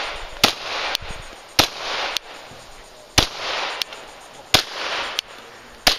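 Glock 17 9mm pistol firing a string of about nine sharp shots at an uneven pace, roughly one every half second to a second, some reports louder and ringing out briefly after.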